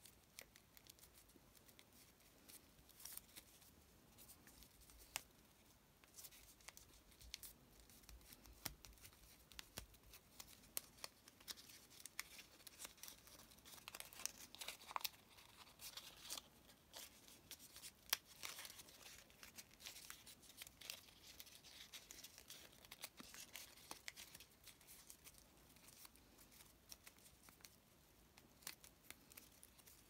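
Faint crinkling and rustling of origami paper as fingers fold, pinch and press creases into a small paper bird, with many tiny crackles. The crackles come thickest in the middle stretch.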